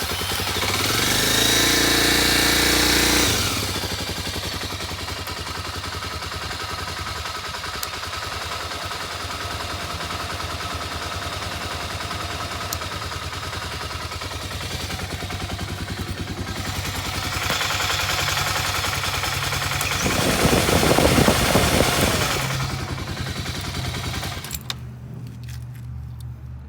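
2012 Kawasaki KLX 250's single-cylinder four-stroke engine running on choke just after starting: revving for the first few seconds, then settling to a steady idle. It is revved up again about twenty seconds in, then drops off near the end.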